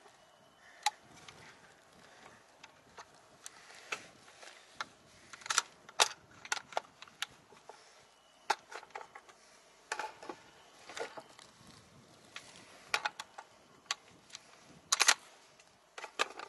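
Irregular metallic clicks and clacks of a Desert Tech MDR bullpup rifle's action being worked by hand to clear a failure to feed, with the loudest clacks about six seconds in and near the end.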